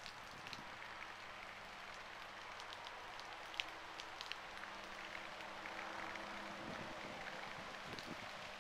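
Steady rain falling, a constant hiss with scattered sharp ticks of individual drops striking close to the microphone.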